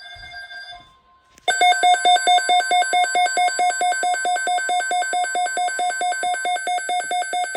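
Emergency alert attention signal: a high pulsing electronic beep at about six beeps a second, starting about a second and a half in after a brief steady tone and a short gap.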